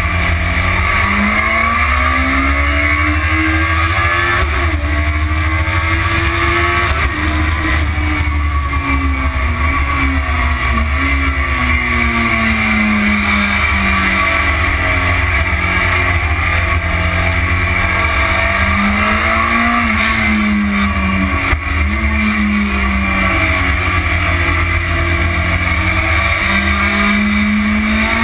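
Motorcycle engine ridden hard, its note rising and falling over and over with a few sudden drops, under heavy wind rumble on the tank-mounted camera's microphone.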